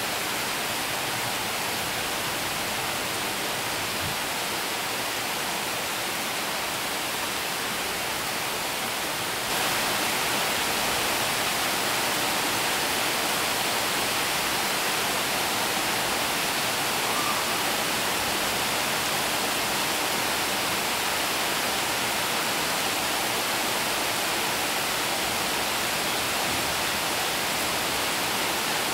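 Heavy rain pouring steadily onto corrugated tin roofs, an even dense hiss that gets a little louder about ten seconds in.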